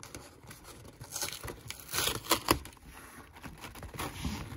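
Cardboard box flaps and plastic packaging rustling and crinkling as they are handled, with a few sharper crackles near the middle.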